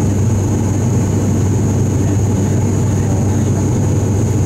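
Steady cabin drone of an ATR 72-500's Pratt & Whitney PW127 turboprops and propellers in flight: a loud, even low hum with a thin steady whine high above it.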